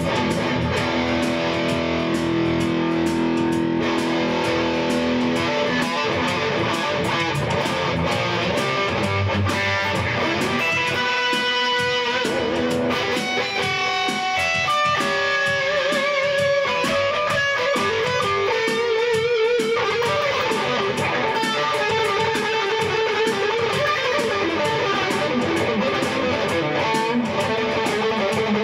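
Electric guitar playing an instrumental rock passage, with held notes wavering in pitch about halfway through.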